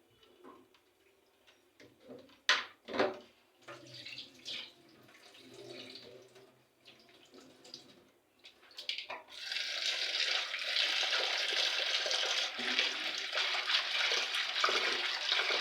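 A few splashes and knocks of grain being handled in a basin of water, then about nine seconds in a steady stream of water starts pouring into the basin to rinse the muthokoi (dehulled maize and beans).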